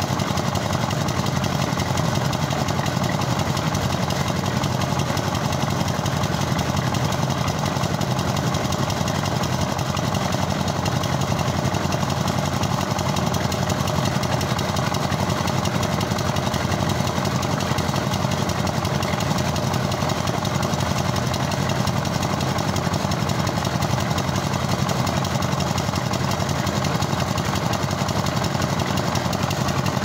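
Engine of a towable concrete mixer running steadily.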